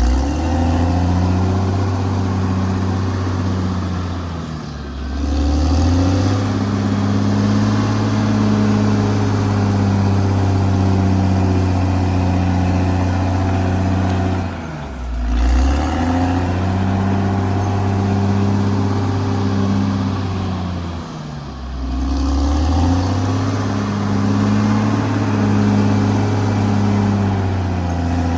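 Caterpillar D6R XL bulldozer's diesel engine running steadily under load, its revs dropping briefly and climbing back three times.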